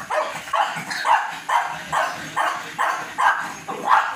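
Small dog barking repeatedly and excitedly, about two to three short barks a second in an even run, while it goes after a live crab.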